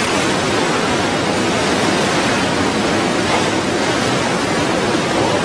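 Floodwater of a swollen, fast-flowing river rushing past, a steady, even rush with no pauses.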